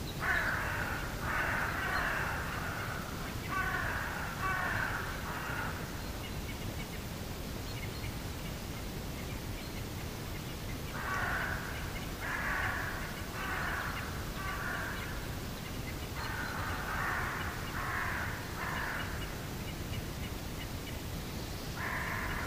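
Crows cawing: a run of harsh caws at the start, then after a pause another run of several caws, and a last caw near the end.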